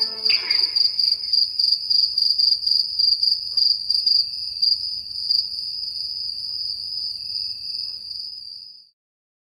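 High-pitched insect chirping: a steady trill that pulses about three times a second at first, then runs on evenly, fading and stopping suddenly near the end.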